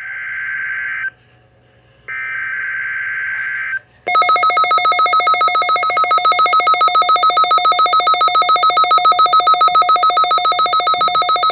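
NOAA Weather Radio SAME header data bursts, the harsh buzzing digital code of a Required Weekly Test. The end of one burst and then a whole second burst of a second and a half or more come through the weather radio, with a short gap between them. About four seconds in, a loud, rapidly pulsing electronic alarm tone takes over and keeps going: the weather radio receiver's alert, set off by the test code.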